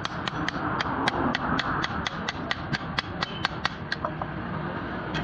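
Hand hammer striking a sickle blade on an anvil in a steady rhythm, about four sharp blows a second, stopping a little after three and a half seconds in.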